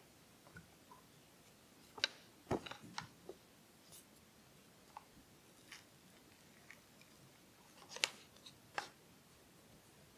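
Scattered sharp clicks and creaks of a 3D-printed plastic tire mold being pried apart with a thin metal blade, the cast silicone tire pulling free of it. The loudest snaps come about two and a half seconds in and again near eight seconds.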